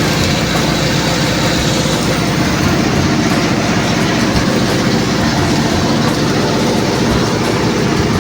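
Steady, loud mechanical running noise with a constant hiss from automatic pipe girth-welding equipment, unchanging throughout.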